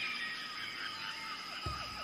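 Rainforest ambience: a steady high-pitched drone with bird chirps and calls over it. A low pulsing beat comes back in near the end.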